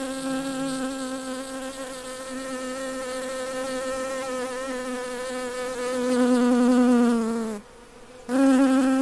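Honeybee buzzing: a steady, even hum. It grows louder near the end, sags in pitch and stops for under a second, then comes back loud.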